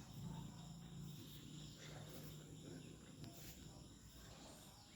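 Near silence: room tone with a faint low hum and a few faint ticks.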